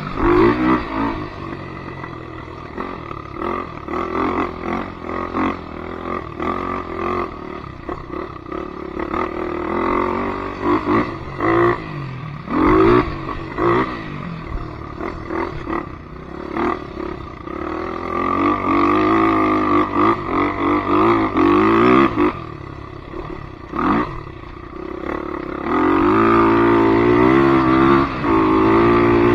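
Polaris Predator 500 ATV's single-cylinder engine running, its revs rising and falling repeatedly, with a few short clattering knocks; it revs hardest over the last few seconds.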